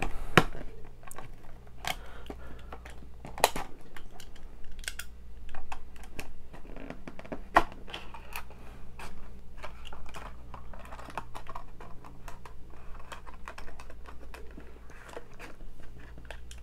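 Plastic blister pack of a Hot Wheels die-cast car card being opened: irregular clicks, crinkling and scratching of plastic and cardboard.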